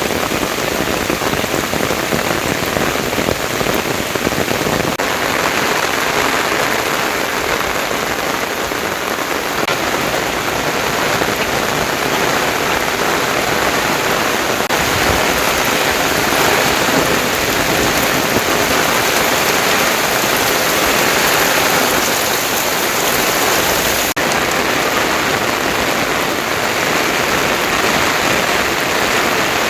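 Heavy rain falling steadily, a dense unbroken hiss of drops hitting surfaces.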